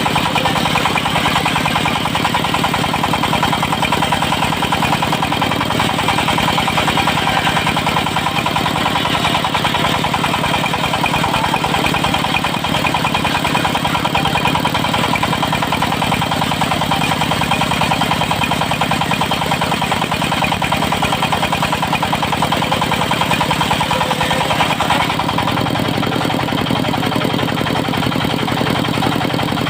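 Diesel engine driving a 70 cm circular sawmill blade, running steadily with an even throb and a steady whine over it. The sound shifts slightly about 25 seconds in.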